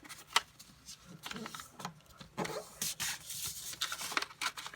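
A sheet of paper being folded and creased by hand for an origami grid: irregular rubbing and crinkling, with a sharp crack within the first half second.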